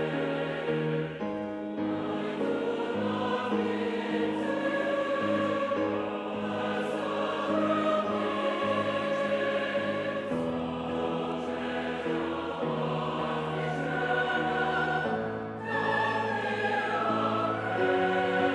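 Large mixed choir of men's and women's voices singing sustained chords in harmony, with a short break between phrases about fifteen seconds in.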